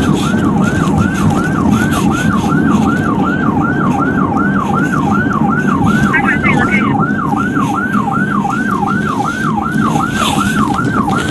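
Police car siren on yelp, a fast wail that sweeps down in pitch about three times a second, over steady engine and road noise.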